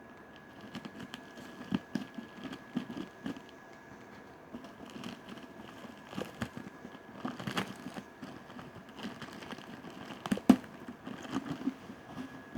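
Packaging being handled during an unboxing: crinkling and rustling with scattered knocks and clicks, the sharpest about ten and a half seconds in, over a faint steady high tone.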